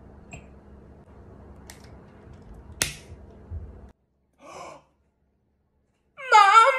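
Quiet room tone with a single sharp click about three seconds in, then near the end a loud drawn-out vocal exclamation of surprise, its pitch wavering up and down.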